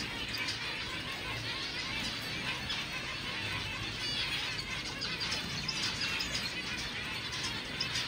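Many zebra finches calling at once: a dense, continuous chatter of short overlapping chirps.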